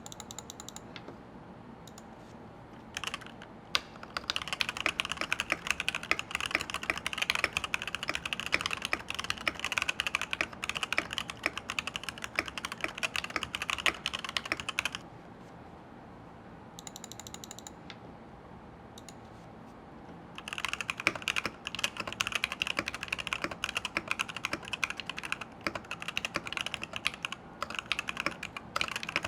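Fast typing on a Varmilo VA87M tenkeyless mechanical keyboard with linear switches and PBT keycaps: dense keystroke clacking starting about three seconds in, pausing for about five seconds midway, then resuming.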